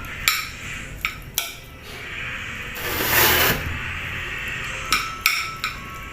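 Cutlery clinking against dishes about six times in short groups, with a louder scraping sound lasting about half a second near the middle, as rice and sardines are scooped up for eating.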